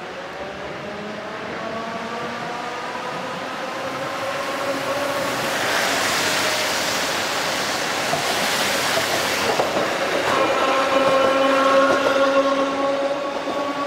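Sapporo streetcar (3300 type) approaching and passing close: its motor whine rises gently in pitch as it comes on, and a van's tyres rush past in the middle. The tram's whine is loudest as it goes by near the end.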